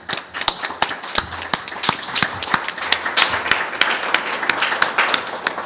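Audience and panelists applauding: many people clapping at once, thinning out near the end.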